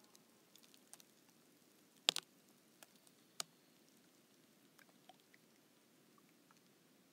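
Thin lake ice at the thawing edge crackling as it shifts in a slight breeze: scattered small ticks and pops, with a sharp double crack about two seconds in and another single crack just over a second later.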